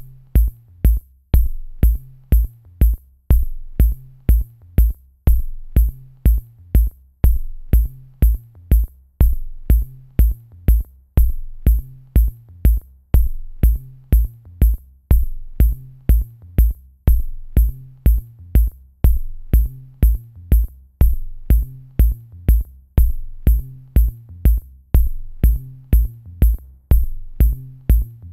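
Background music with a steady electronic drum-machine beat: a regular low kick with sharp high ticks over it.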